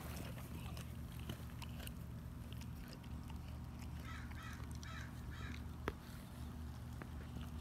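German Shepherd chewing raw chicken with scattered crunching clicks, while a crow caws about four times in the background a little past halfway, over a steady low hum.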